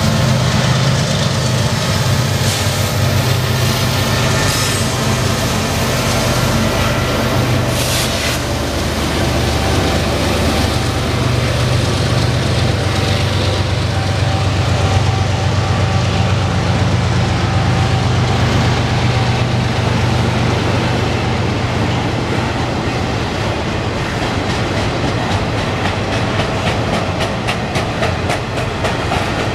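Train rolling past: a steady rumble of steel wheels on rail, with a low steady hum in the first half that fades. Near the end comes a fast run of clicks as the double-stack container cars go over the rail joints.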